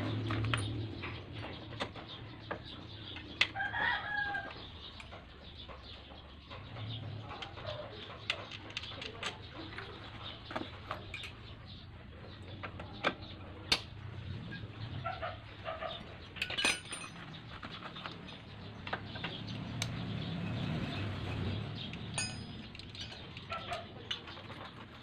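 Irregular sharp metal clicks and clinks of hand tools and loose bolts as the bolts on a scooter's engine side cover are undone and set down one by one. Chickens call in the background, most clearly about four seconds in.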